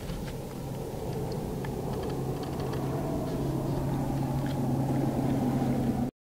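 A motor's low rumble with a steady hum, slowly getting louder and cutting off abruptly near the end.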